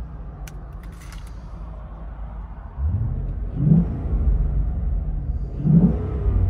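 Ford Mustang GT's 5.0 V8 through a valved cat-back exhaust with its valves closed, running with a low, subdued note. A couple of light clicks come about a second in. Near three seconds it is revved twice, the note rising and falling each time but staying quiet, since the valves muffle it.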